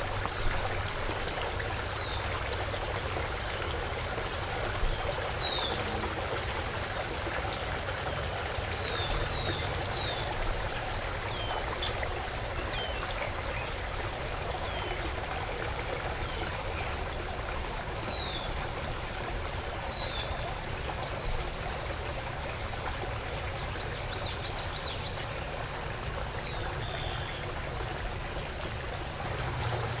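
Shallow water running steadily over a flat bed, a continuous rush with some trickling. A bird gives short, high, falling chirps now and then, several in a quick cluster about ten seconds in.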